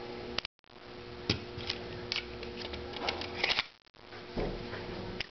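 SIG P250 pistol parts being handled during reassembly: scattered sharp metal clicks and scrapes, with a cluster of them past the middle and a dull knock near the end, over a steady background hum.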